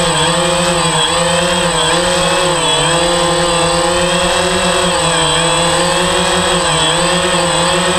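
DJI Phantom 3 quadcopter's motors and propellers buzzing steadily in flight, the pitch wavering slightly up and down as the motors adjust speed.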